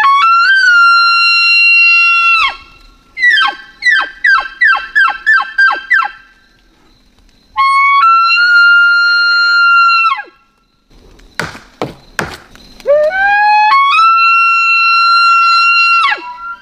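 Elk bugle call blown through a bugle tube. It rises to a long, high whistling note, then breaks into a run of about seven quick falling chuckles. A second held high note follows, a few sharp knocks come about halfway through, and it ends with another rising bugle.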